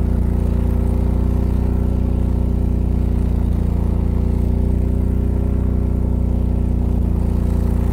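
A competing brand's standby generator, its engine running steadily under load at 3,600 rpm, heard from 7 meters away. It is an even, unchanging engine hum with strong low tones.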